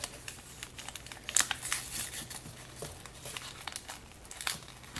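Foil Million Warriors blind-bag packet crinkling as it is handled and torn open by hand: an irregular run of sharp crackles, loudest about a second and a half in.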